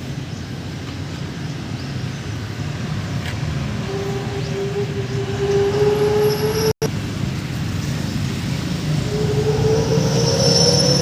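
Two-stroke brush cutter engine running, its pitch rising slowly twice as it is revved, with a momentary gap about seven seconds in.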